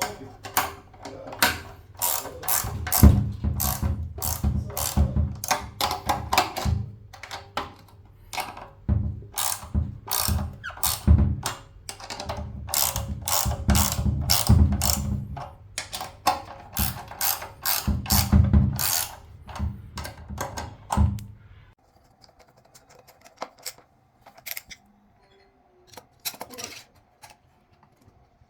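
A rapid, irregular run of sharp mechanical clicks and knocks from hand-tool work, stopping about three-quarters of the way through, after which only a few faint clicks remain.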